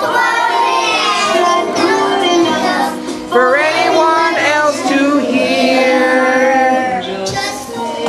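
Young children singing a song together, with music playing along.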